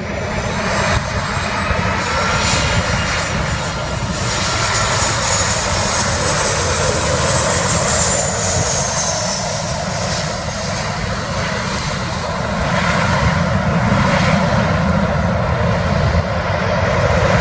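A Boeing 737-800 airliner's CFM56 turbofan engines whine and rush on final approach and through touchdown, with a high whine falling in pitch midway. The engine noise swells again in the last few seconds as the jet rolls out on the runway.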